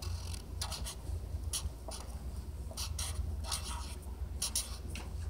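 Felt-tip marker writing on paper: clusters of short scratchy strokes as letters are drawn, with brief pauses between them.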